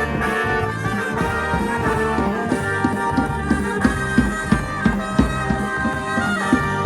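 Band music: melody instruments holding long notes over a steady drum beat of about three strokes a second, which becomes clear about two and a half seconds in.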